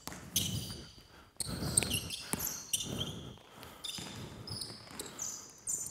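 A basketball bouncing on a hardwood gym floor, several irregular bounces as players dribble, mixed with short high-pitched squeaks of sneakers on the court.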